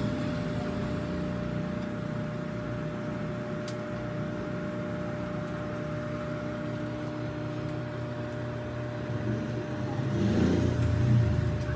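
Sharp R-32E(S) microwave oven running, a steady hum with a fixed tone. The hum swells louder about ten seconds in.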